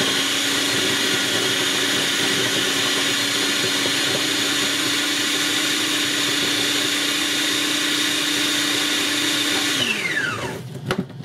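Food processor motor running at steady speed with a constant whine. Near the end it is switched off and its pitch falls as the motor spins down, followed by a few sharp clicks.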